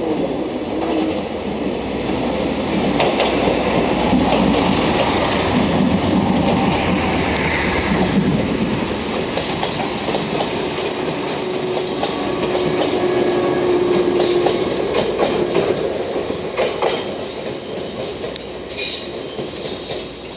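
JNR 381 series electric train with a KuMoYa 145 rail car on the end passing slowly at close range, wheels clicking over rail joints and points with brief squeals from the wheels. It is loudest in the middle and fades toward the end as the last car moves away.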